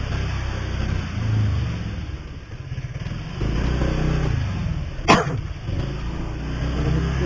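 Motorcycle engine running at low speed, swelling briefly from about three and a half seconds in. A single short, sharp sound cuts through about five seconds in.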